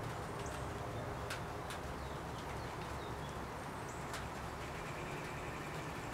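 Steady low background rumble with a few faint clicks and thin, short high chirps scattered through it.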